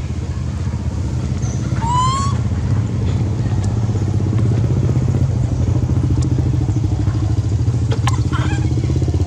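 A small engine runs steadily at idle with an even, rapidly pulsing drone. A short rising squeal comes about two seconds in.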